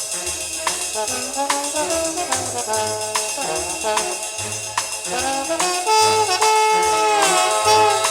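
Instrumental samba rock music with a steady beat of tambourine and percussion under a bass line, and brass horns playing a melody that swells about two-thirds of the way through.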